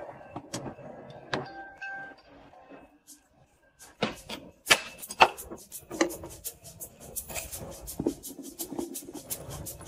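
Sharp plastic clicks and taps as a toothbrush is pushed against the outlet of an automatic toothpaste dispenser to trigger it. The clicks start loud and scattered about four seconds in, then come quickly, several a second, near the end.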